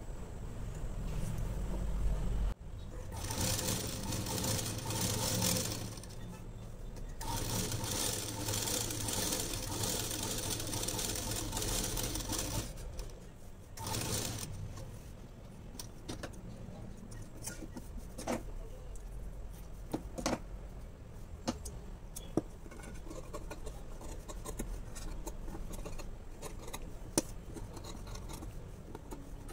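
A sewing machine stitching in runs of a few seconds, stopping and starting again, as it sews a facing onto blouse fabric. In the second half, scattered sharp clicks and snips as scissors cut the cloth.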